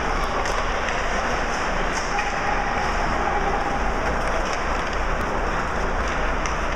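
Ice hockey rink ambience during play: a steady, loud noisy wash of skates on ice and the arena's air handling, with a few faint scattered clicks.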